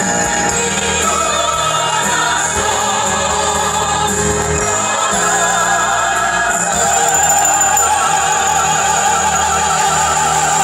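Live orchestral music with voices singing in an operatic, choral style. About two-thirds of the way through it swells into long held notes that waver with vibrato.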